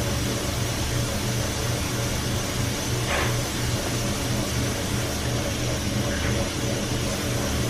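Kitchen tap water running steadily as potatoes are washed under it, over a steady low hum.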